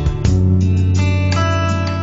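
Background music led by a plucked guitar, with a new chord struck about a quarter of a second in.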